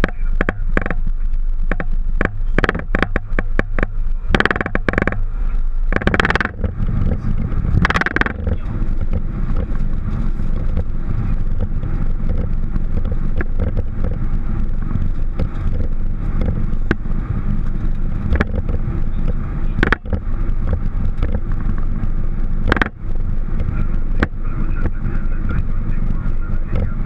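Boeing 737 flight-deck noise: a steady low rumble of engines and airflow, with a run of sharp clicks and knocks through the first eight seconds and a few more later on.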